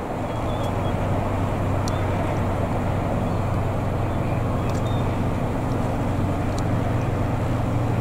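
Steady low outdoor rumble with a light hiss and a few faint high ticks.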